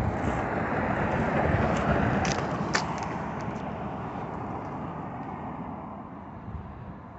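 A road vehicle driving past, its engine and tyre noise swelling over the first two seconds and then slowly fading away. A few sharp clicks come about two to three seconds in.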